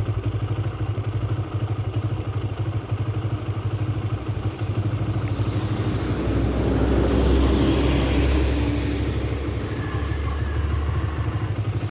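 Small engine running with a steady fast pulse. A louder engine rumble with hiss swells about six seconds in and fades by about ten seconds.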